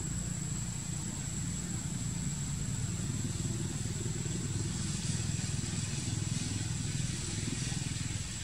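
A steady low engine rumble, like a motor idling, with a thin high steady whine above it.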